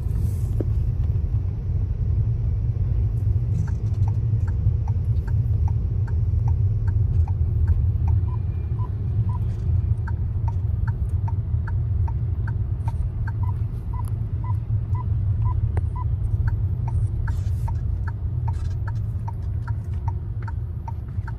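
Steady low rumble of road and engine noise inside a car's cabin in slow traffic. A few seconds in, an even, rapid ticking starts, the car's turn-signal indicator, and keeps going.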